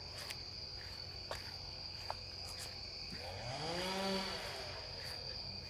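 Steady chorus of crickets or other insects, heard as an even, high-pitched drone. About three seconds in, a fainter pitched hum rises in pitch, holds for about a second, then falls away.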